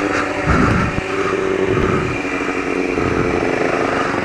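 Motorcycle engine running at a fairly steady pitch, without big revs.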